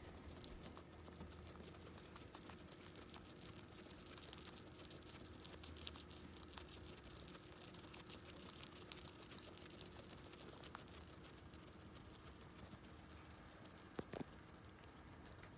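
Guinea pigs chewing and nosing through hay: faint, rapid, irregular crunching clicks, with a couple of louder clicks near the end, over a faint steady hum.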